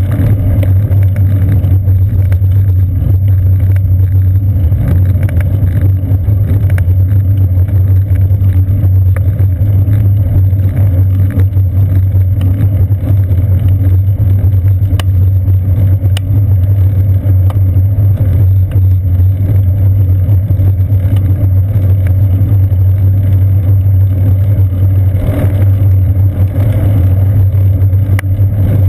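Steady low rumble of a moving bicycle on pavement: tyre and road vibration and wind, carried up through a seat-post-mounted GoPro Hero 2 in its housing, with faint scattered ticks.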